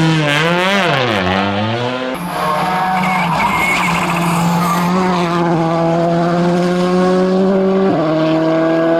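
Competition car engines at a speed event. First an engine revving up and down hard as the car slides with the tyres skidding; then, after a cut, an engine held at high, steady revs, its pitch creeping slowly higher as the car comes up and goes past.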